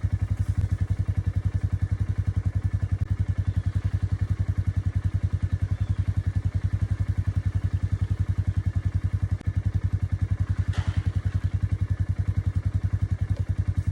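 Side-by-side utility vehicle's engine running steadily with a rapid, even low pulse as it drives.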